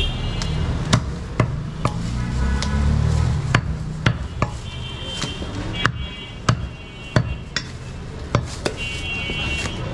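Large butcher's knife chopping goat meat on a wooden log chopping block: a string of sharp, irregularly spaced chops, roughly one or two a second.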